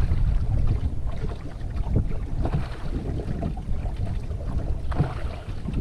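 Wind buffeting the microphone in a loud, uneven low rumble, over water lapping and splashing against an Old Town Camper canoe's hull as it moves along the creek.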